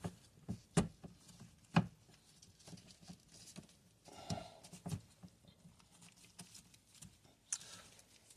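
Scattered light clicks and knocks with a short rustle about four seconds in: hands handling washing machine parts during a repair.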